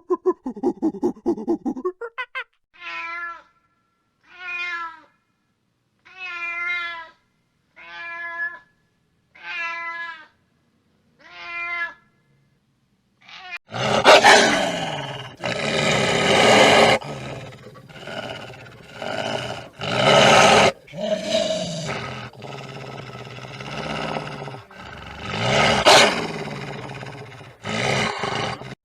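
A cat meowing six times, each call about a second long with short silences between. About fourteen seconds in, loud, rough growling and roaring calls take over.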